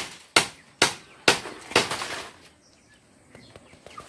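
Hammer driving nails into a wooden frame: about five sharp blows, roughly two a second, that stop a little past halfway, followed by a few faint small knocks.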